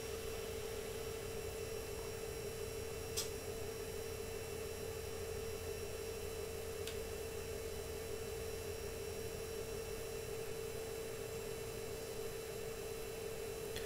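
Dell PowerEdge R210 II 1U rack server running steadily as it finishes booting: a steady fan hum with one clear mid-pitched tone over a light hiss. Two faint ticks come a few seconds apart.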